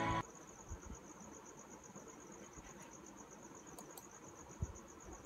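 Faint, steady, high-pitched pulsing trill, insect-like, with two soft clicks just before four seconds in.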